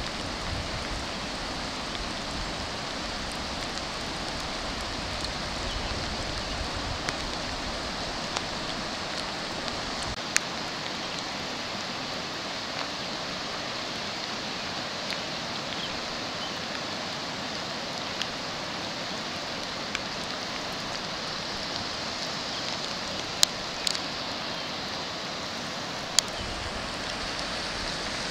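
Steady hiss of water, with a low rumble over roughly the first ten seconds and a few sharp ticks, the loudest about 23 and 26 seconds in.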